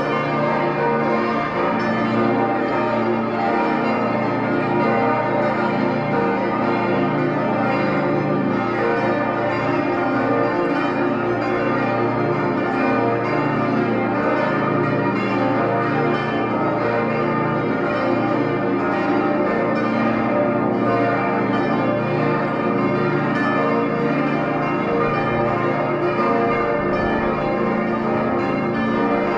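The Herrenberg Stiftskirche's twenty-voice full peal: many large church bells ringing together in a dense, continuous wash of overlapping strikes, steady in loudness throughout.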